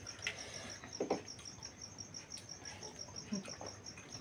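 A cricket chirping in a steady, fast, even pulse, with a few soft smacks and clicks of people chewing food eaten by hand.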